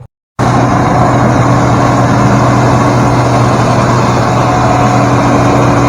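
Farm tractor engine running steadily under way, heard loud and close, a constant low hum under a dense mechanical drone that does not change.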